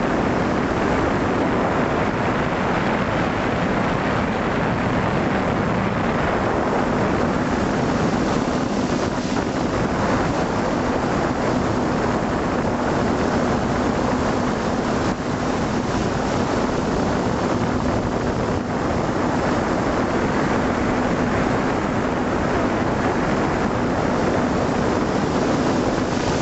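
Small FPV drone's motors and propellers humming steadily, with a faint steady tone, mixed with wind rushing over the microphone of the camera on board.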